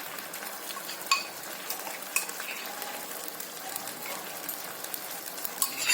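Chicken and masala frying in a pan with a steady sizzle, while a spoon stirs and knocks against the pan a few times as green chilli and coriander paste is mixed in.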